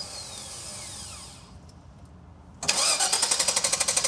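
A 5.7 L small-block V8 being cranked on the starter for about a second and a half without catching, with a falling starter whine as it spins down at the start and again after the cranking stops. It cranks but won't start because fuel pressure is only about 15 psi, where this Vortec system needs about 55.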